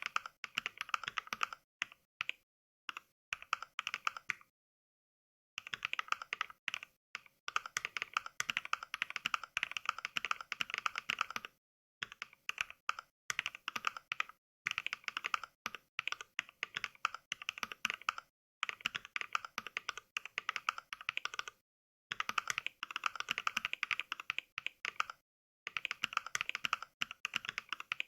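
Mechvibes NK Cream sound pack: recorded clicks of NovelKeys Cream mechanical-keyboard switches, played back on every key press. The typing comes in quick runs a few seconds long, broken by short pauses of dead silence.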